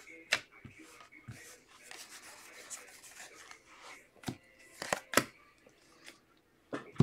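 Football trading cards slid and flicked against one another in the hand as a stack is shuffled through, a soft rubbing with a few sharp card snaps, several of them between four and five seconds in.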